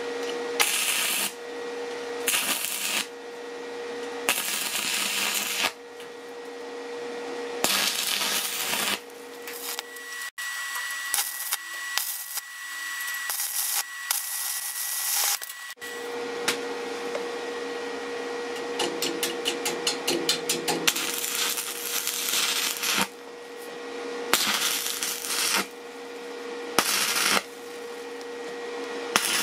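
Stick (electrode) welding arc crackling and hissing in short bursts that start and stop repeatedly, as screws are tacked together onto thin sheet steel, with a steady hum underneath.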